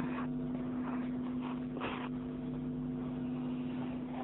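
A pause in the recitation: a steady low hum of background noise, with a faint short rushing sound about two seconds in.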